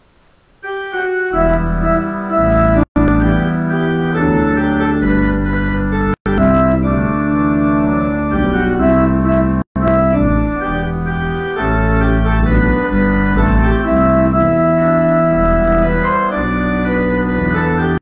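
Organ postlude: sustained organ chords starting about half a second in. The sound is broken three times by split-second dropouts.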